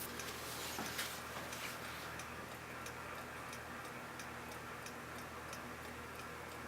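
Faint, even ticking, about three ticks a second, over a low steady hum, with a single louder knock about a second in.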